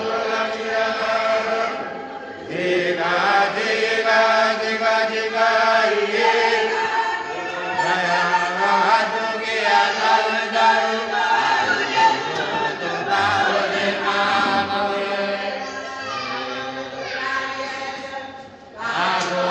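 Church congregation singing a hymn together, many voices holding long notes in harmony, with short breaks for breath about two seconds in and near the end.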